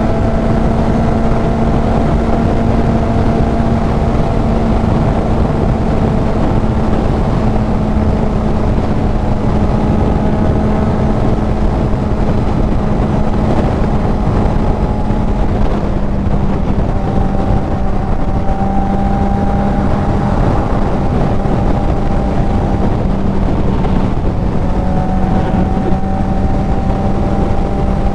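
Kawasaki Z900's inline-four engine through a CS Racing full exhaust, holding a steady drone at cruising speed with only slight changes in pitch, under a heavy rumble of wind buffeting on the helmet-mounted microphone.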